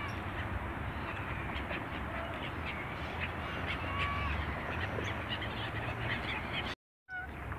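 A flock of Eurasian coots and gulls on a lake calling, with many short overlapping calls over a low steady rumble. The sound cuts out briefly near the end.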